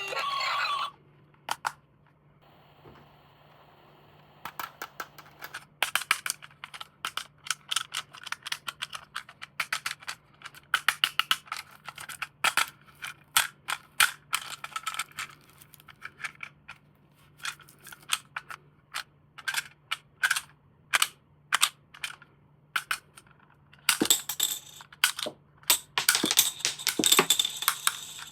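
Toy packaging and plastic parts being handled: a long run of sharp, irregular plastic clicks and crackles that comes thicker and noisier near the end.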